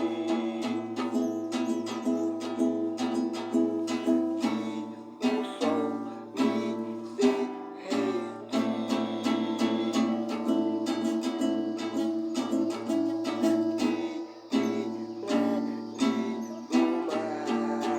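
Music played on a strummed acoustic plucked-string instrument, a guitar or ukulele, with steady rhythmic strums.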